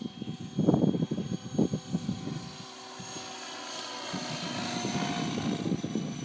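JetRanger helicopter in flight. Its rotor chops unevenly for the first couple of seconds, then a steady whine rises in pitch through the second half.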